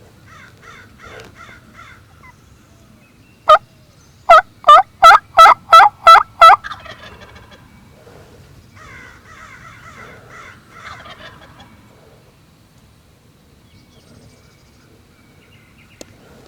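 Wild turkey calling close by: one sharp note, then a loud run of seven evenly spaced yelping notes over about two seconds, with fainter bird calls around it.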